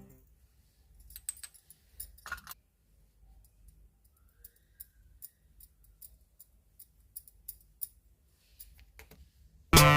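Sparse, light clicks and taps at irregular intervals from small utensils being handled during miniature food preparation. Music comes back in near the end.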